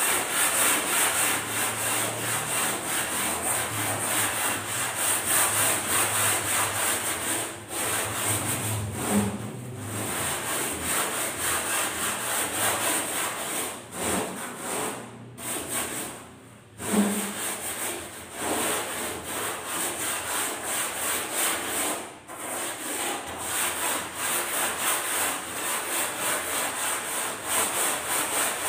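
A Styrofoam boat hull being hand-sanded with a sanding block, rubbed back and forth in repeated rasping strokes, with a couple of brief pauses midway.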